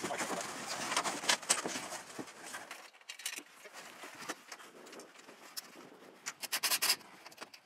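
Clicks, taps and light knocks of solar panels being set down and slid onto aluminium mounting rails on a metal roof, with a quick run of clicks about six seconds in.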